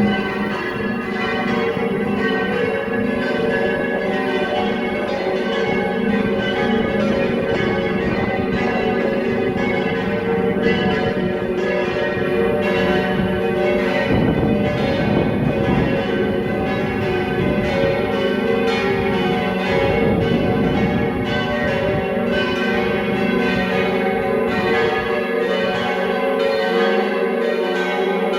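Several church bells pealing together for the noon ringing: a dense, continuous clang of overlapping strikes and hum.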